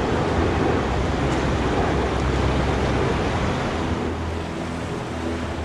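Whitewater rushing over a river block ramp, a steady noisy rush of water.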